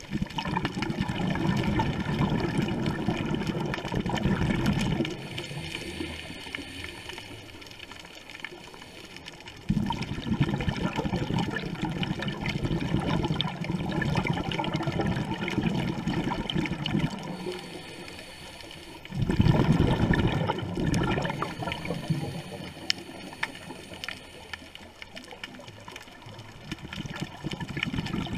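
Scuba diver's exhaled breath bubbling out of the regulator, recorded underwater: three long rushing, gurgling bursts about ten seconds apart, with quieter spells between breaths.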